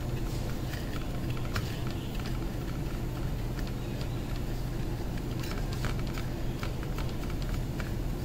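Steady low background hum, with faint scattered clicks and rustles of fingers rolling sweet balls in powdered sugar on a china plate.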